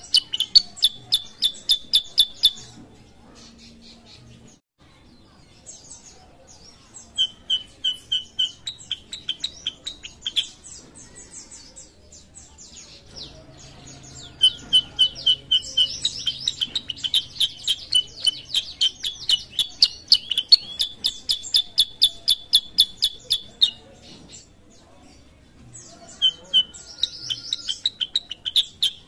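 Black-headed bulbul (kutilang sutra) singing in full voice: runs of rapid, high repeated chirps, about four a second, in stretches of several seconds with short pauses between them.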